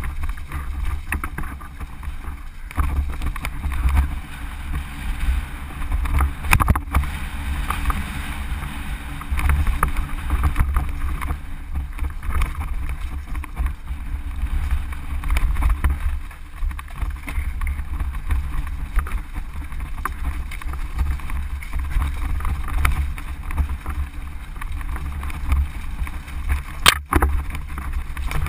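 Wind buffeting the microphone of a mountain bike's onboard camera as the bike descends a rocky trail, with the continuous rattle and clatter of the bike and its tyres over stones. Two sharp knocks stand out, about seven seconds in and near the end.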